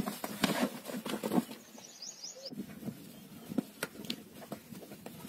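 Irregular knocks and thuds of two bulls fighting, horns and hooves clashing and scuffling, busiest in the first second and a half, with a few quick bird chirps about two seconds in.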